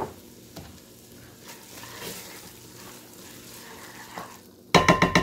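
Food sizzling gently in a Dutch oven on the stove, then, near the end, a utensil stirring it and scraping loudly against the pot in rapid strokes with a ringing tone.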